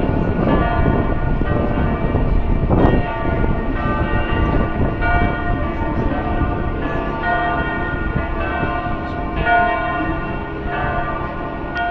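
Church bells pealing, several bells striking in overlapping turns about once a second, over a steady low rumble.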